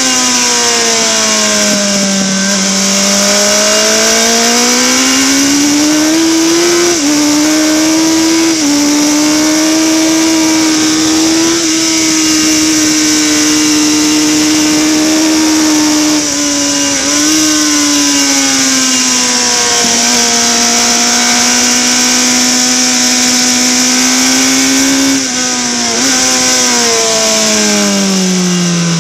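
Harris Yamaha racing motorcycle engine at racing revs, heard from on board. The note dips as the bike slows for corners and climbs again as it accelerates, with brief steps at gear changes, over a steady rush of wind on the microphone.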